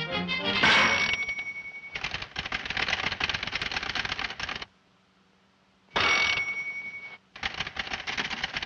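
Rapid mechanical clattering in three bursts, broken by a near-silent pause about five seconds in and a short one a little later. A steady high ringing tone sounds at the start of the first two bursts.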